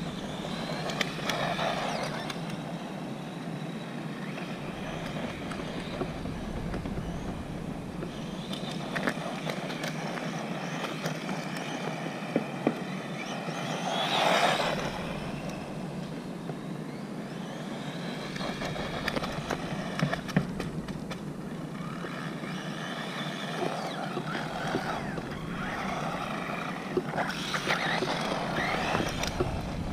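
Small 1/20-scale electric RC car (Wltoys 20409) driving on cracked asphalt: a motor-and-gear whine that rises and falls in pitch in several spells as it speeds up and passes, with tyre noise and small clicks. It is loudest about halfway through, when the car passes close.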